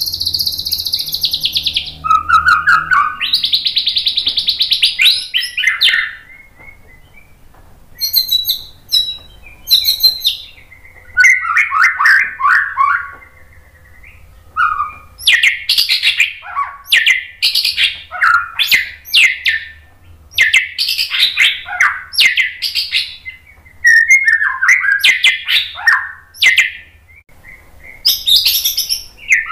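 White-rumped shama singing a long, varied song: high buzzy trills in the first few seconds, then chattering phrases and a run of quick falling whistled notes, with short pauses between phrases.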